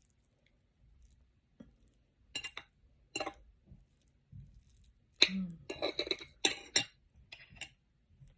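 An eating utensil clinking and scraping against a bowl while rice is mixed: two separate clinks, then a quicker run of clinks and scrapes about five seconds in.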